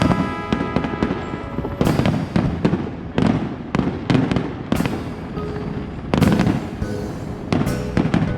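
Aerial fireworks going off: a string of sharp bangs about a second or so apart over a continuous low rumble of bursts.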